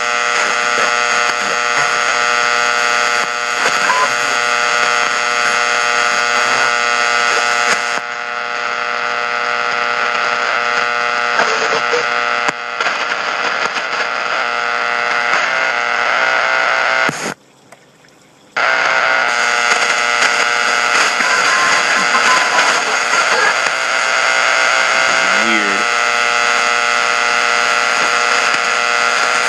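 Shortwave radio receiving the UVB-76 'Buzzer' station on 4625 kHz: a steady, dense buzzing over static. The signal drops out for about a second roughly two-thirds of the way through, and a faint wavering tone shows near the end.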